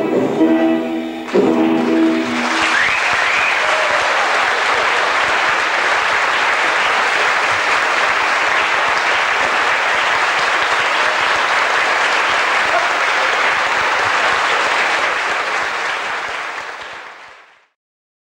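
Plucked-string dance music ends with a final accent about a second and a half in. Audience applause follows, with a short rising whistle near the start. The applause goes on steadily for about fifteen seconds and then fades out.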